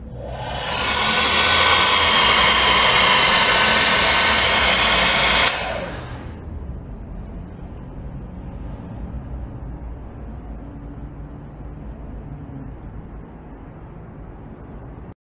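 Small electric motors and propellers of a model twin-rotor convertiplane whirring up to speed with a high, many-toned whine and rushing air. The whine cuts off about five and a half seconds in and winds down over about a second, leaving only a low hum.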